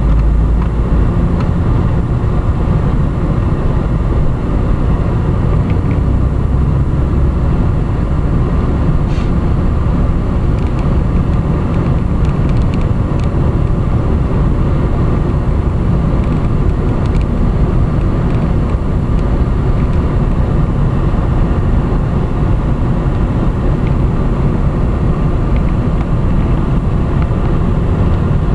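Steady road and engine noise of a car driving slowly, heard from inside the cabin.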